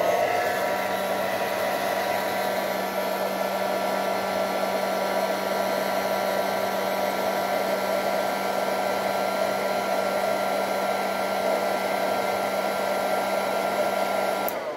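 Hot-air dryer blowing hot air: a steady rush of air with a motor whine, switched off near the end and winding down.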